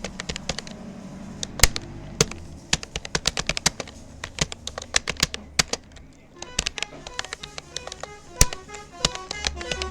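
Fast typing on a Rapoo computer keyboard: an irregular run of sharp key clicks, several a second. About two-thirds of the way through, short melodic notes of music come in beneath the clicks.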